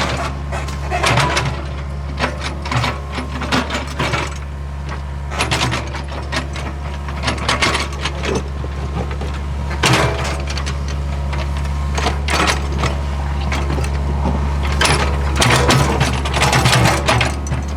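Hitachi ZAXIS75UR excavator's diesel engine running steadily, with irregular clanks, knocks and scraping from the machine working the ground as it grades the road.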